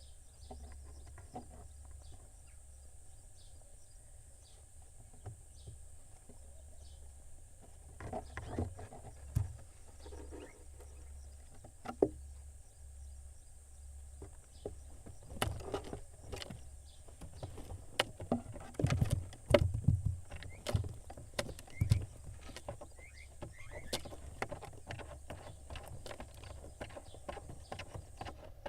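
Barn owl chicks moving about in a nest box: scattered knocks, scrapes and scuffles, busiest and loudest a little past halfway. A steady low hum and a thin high whine run beneath them.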